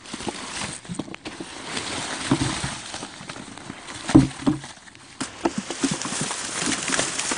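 Dry sweet corn stalks and leaves rustling and crackling as ears are picked, with a few dull thumps.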